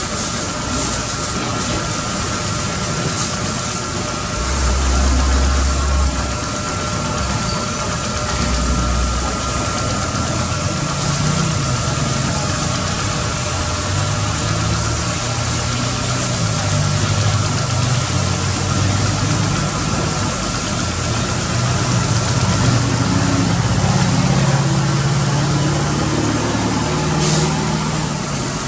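A pressure-washer jet spraying water into a car's engine bay: a steady hiss of spray over a steady mechanical drone from the machine.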